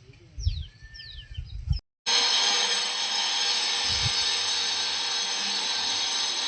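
Birds chirping briefly, then after a sudden cut a loud, steady rush of water gushing out.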